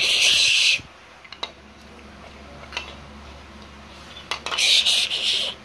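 Two loud hissing bursts, one at the start and one near the end, with a few light clicks of plastic toy bricks being handled in between.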